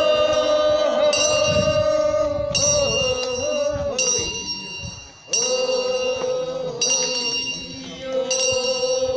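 Korean funeral bier song (sangyeo sori) being sung in long, drawn-out notes, with a hand bell struck about every second and a half and ringing between strikes.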